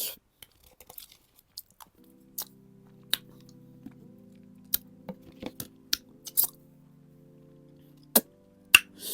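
Close-miked eating sounds: a person chewing kheer (rice pudding) with scattered sharp clicks and smacks. Soft background music comes in faintly about two seconds in.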